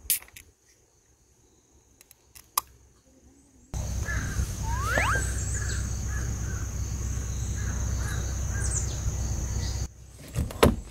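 A drink can's pull tab snapped open at the start, then near quiet. About four seconds in, outdoor woodland ambience takes over: birds calling, with a rising whistle and repeated short chirps, over a low rumble and a steady high-pitched drone, ending abruptly near the end.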